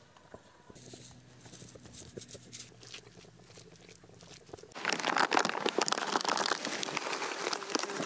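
A metal spatula scraping and tapping on a flat griddle as rice is chopped and stir-fried. From about five seconds in, a foil bag being handled, rustling and crinkling loudly.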